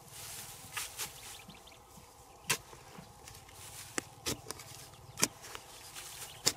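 Metal digging bar jabbing into hard, dry soil: about seven sharp, irregular chops and scrapes, the loudest about two and a half, five and six and a half seconds in.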